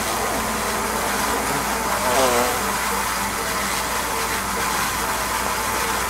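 Steady drone of a honeybee swarm clustered in a tree, with a brief louder wavering buzz about two seconds in.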